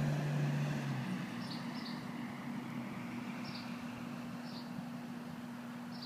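Outdoor ambience: a steady low mechanical hum, with a deeper hum that drops out about a second in. Brief high chirps come every second or so over the top.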